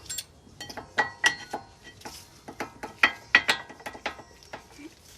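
Brake pads and their metal clips clinking against the caliper bracket as they are worked into place on an OEM disc brake: a run of sharp, irregular metallic clicks and clinks, some of them ringing briefly.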